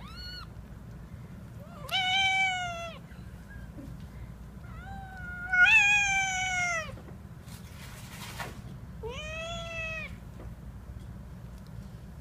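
A mother cat meowing while nursing her kittens: four drawn-out meows, a short one at the start, the loudest and longest about halfway through, rising then sliding down in pitch, and a softer one near the end.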